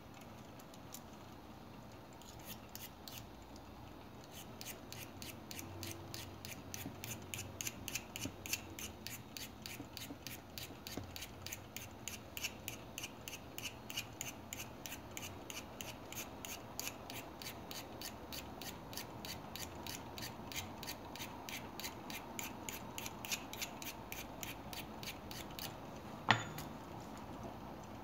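Small steel blade of a Victorinox keychain penknife scraped across a small handheld white sharpening stone in quick, even strokes, about three a second, resharpening a dulled edge. One sharp click near the end.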